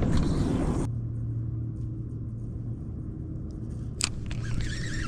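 Low, steady rumble of a boat's engine idling, with a faint hum. A single sharp click about four seconds in.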